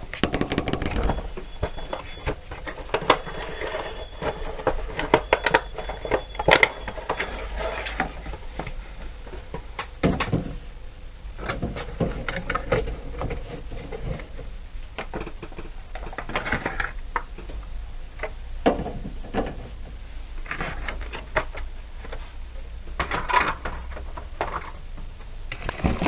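Cardboard box and packaging being handled to take a vinyl bobblehead figure out: scattered clicks, taps and short rustles throughout.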